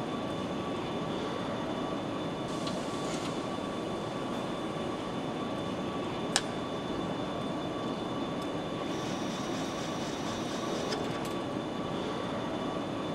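Steady machinery noise of a car assembly hall, with faint high hums, and one sharp click about six seconds in.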